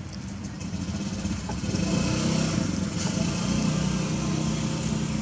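A motor engine running steadily nearby, growing louder about two seconds in.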